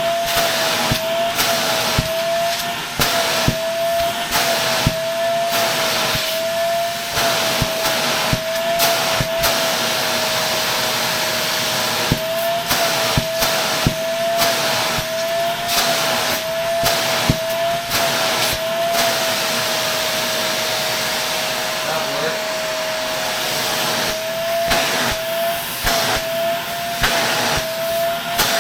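Shark Navigator Lift-Away vacuum running steadily, its motor whine wavering slightly in pitch over a rushing air hiss as it sucks dirt from another Shark's filter, with frequent sharp clicks and knocks of the tool and debris against the filter.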